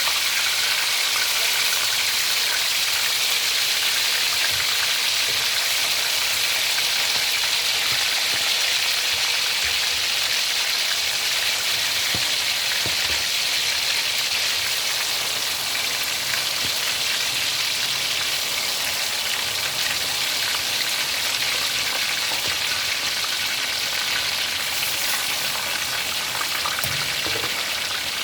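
Seasoned chicken pieces frying in hot oil: a steady, fairly loud sizzle, easing off a little toward the end.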